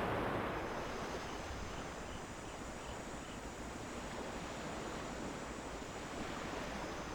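Sea waves washing onto a beach with a steady rush, under a high, continuous cicada drone that sets in about half a second in; a few faint bird chirps come in the middle.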